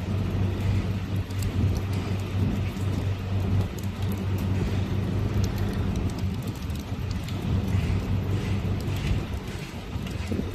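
Storm wind and rain noise, a steady rushing hiss with scattered small ticks, over a steady low hum that fades near the end.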